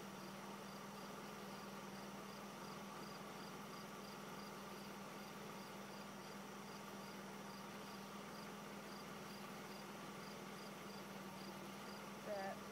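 Faint crickets chirping in a steady rhythm of evenly spaced chirps, a few a second, over a low steady hum. A brief faint wavering sound comes near the end.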